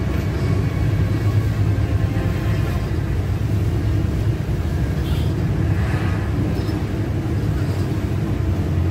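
Bus engine and road noise heard from inside the cabin while driving: a steady low drone.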